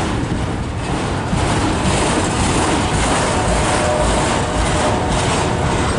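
Freight cars of a long mixed manifest train rolling slowly past: a steady rumble and rattle of steel wheels on the rails.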